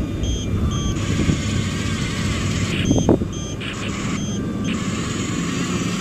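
Double E E579 RC toy bulldozer driving and pushing dirt: a steady motor hum, with short high beeps repeating in a pattern and a brief sharp whine about halfway through.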